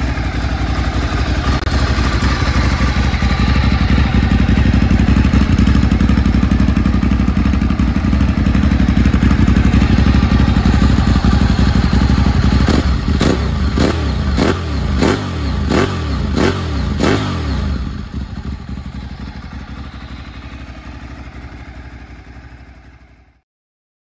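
Ducati 848's 90-degree V-twin running through a Termignoni carbon slip-on silencer: it runs steadily at first. About halfway through comes a quick series of about eight throttle blips, each rising and falling in pitch. It then settles back and fades away near the end.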